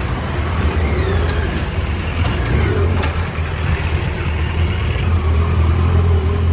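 Vehicle engines running close by, a steady low rumble of idling and slow-moving traffic.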